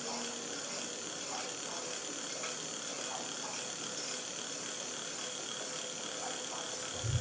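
Electric bike's rear hub motor spinning the lifted rear wheel under throttle: a steady electric whine with an even whir, running without problems. A low thump near the end.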